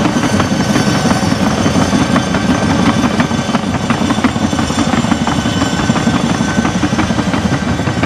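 Crawler bulldozer working: its diesel engine runs steadily, with frequent irregular clanks and knocks from the steel tracks.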